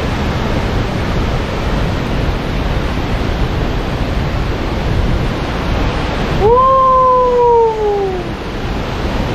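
Steady roar of a large waterfall in monsoon flood. About two-thirds of the way through, a person gives one long call that jumps up and then slides slowly down in pitch, lasting about two seconds.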